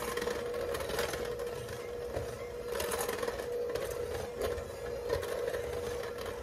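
Electric mixer running at low speed, beating flour into sugar cookie dough: a steady motor hum with scattered faint clicks.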